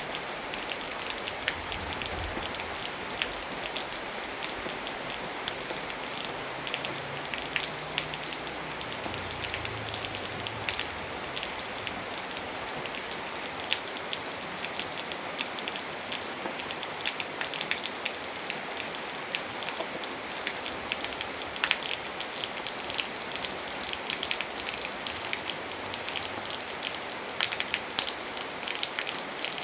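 Steady rain falling, an even hiss with many individual drop strikes heard as sharp ticks. A faint low rumble comes in briefly near the middle.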